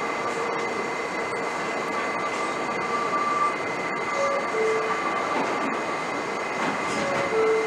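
Elevated subway train running along a steel viaduct: a steady noise of wheels on the rails, with a couple of short squeals of the wheels in the middle and near the end.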